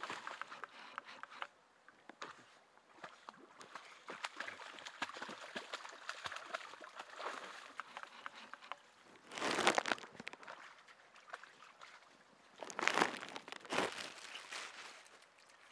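Dogs wading and paddling in shallow water at the bank, the water sloshing and splashing, with two louder splashes about ten seconds in and again about three seconds later.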